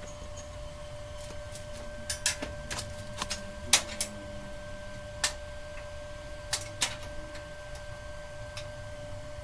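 Scattered light clicks and metallic taps, about a dozen at irregular spacing, some ringing briefly, from hand work on a steel rack. A steady hum runs underneath.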